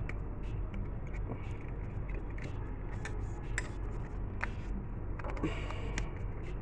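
Scattered light clicks and taps of small hardware being handled, such as RAM modules being picked up and set down, over a steady low hum.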